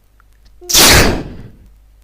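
A person sneezing once, loudly: a brief voiced catch of breath, then a sharp explosive burst that dies away within about a second.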